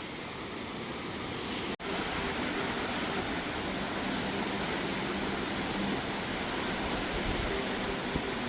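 Steady rush of a flood-swollen river running high after heavy rain, with a brief dropout about two seconds in where the recording cuts.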